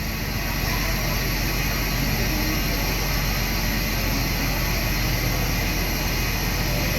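Steady, even drone of a large passenger ship's engines and machinery, with a constant low hum, as the ship comes alongside to dock.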